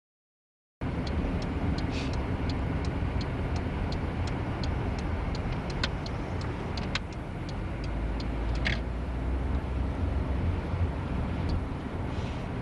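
Car cabin rumble of a slow drive, the engine and tyres heard from inside the car, starting suddenly about a second in. Through the first half there is a run of light ticks, about three a second.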